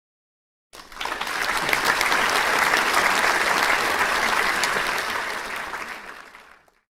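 Applause, a dense patter of many hands clapping, coming in suddenly about a second in and fading away near the end.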